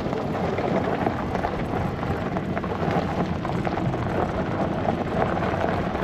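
Farm vehicle driving over rough ground: a steady rumble of engine and tyres with a constant crackle of small rattles.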